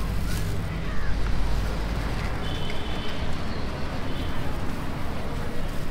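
Street ambience with a steady rumble of passing road traffic.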